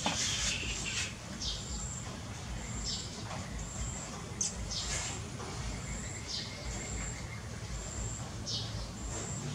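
Small birds chirping: a short high-pitched note repeating about once a second, with quick downward-sliding chirps every second or two, over a low steady background rumble.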